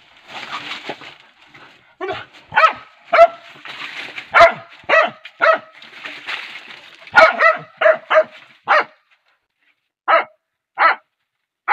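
Dogs barking hard in quick volleys while they worry a cornered monitor lizard, with rustling, scuffling noise between the barks. The barking thins to two single barks near the end.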